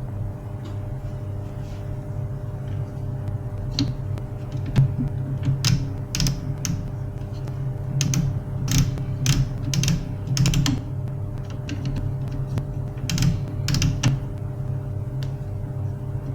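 HP LaserJet 401 laser printer running with a steady motor hum, while its mechanism gives irregular clicks and creaks, mostly in the middle stretch.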